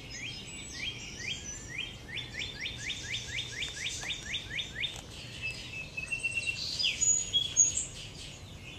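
Dawn chorus of several wild birds. For the first half, one bird gives a fast run of repeated sweeping notes, about five or six a second. Other chirps and whistles come throughout, loudest in the second half.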